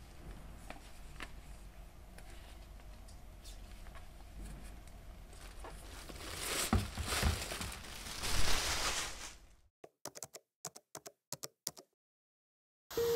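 Close handling noises: light taps and scrapes, a louder rustling stretch about seven to nine seconds in, then a few separate clicks before a short dead silence.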